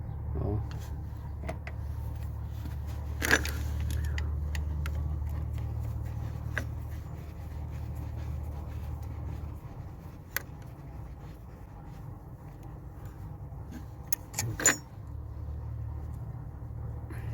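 Scattered metallic clicks and clinks of hand tools working on a car engine while bolts are undone, with a steady low hum underneath.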